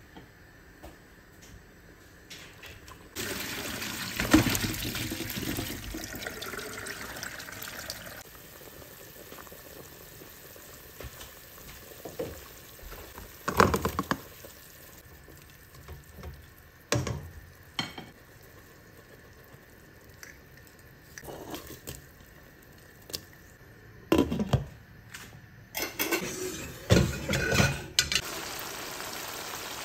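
Kitchen sounds at a stove: water running into a pot for several seconds, a splash and knocks as corn pieces are dropped into the pot, then scattered clatters of cookware, loudest near the end.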